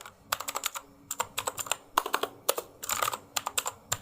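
HP GK100 mechanical keyboard with blue switches being typed on in quick runs of sharp key clicks, several a second, with short pauses between the runs.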